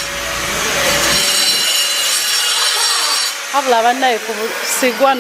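An electric power tool cutting or grinding stone, a harsh, steady rasping grind. A voice talks over it from about three and a half seconds in.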